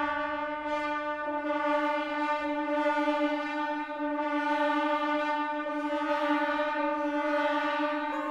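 Trombones and other brass holding long, steady notes in a dense microtonal chord, the pitches shifting slightly now and then.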